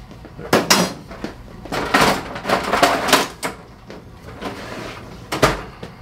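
Handling noises: two sharp knocks about half a second in, a couple of seconds of rustling and scraping, then another sharp knock near the end.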